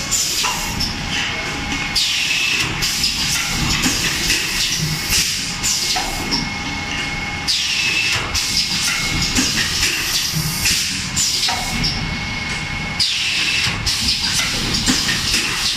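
A 3-cavity automatic PET bottle blow moulding machine running: a steady machine din with a faint high whine, broken every five or six seconds by a loud hiss of compressed air being let out, once each moulding cycle.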